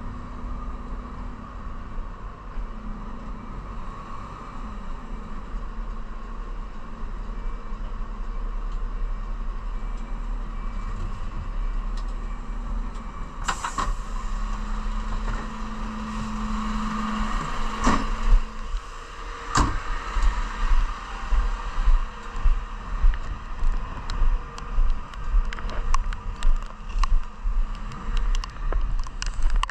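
Refuse truck's diesel engine running, heard from inside the cab, with a low drone for a few seconds near the middle. About two-thirds of the way in come two sharp knocks, the cab door, and then regular footsteps on block paving, about one a second, with the engine still running behind.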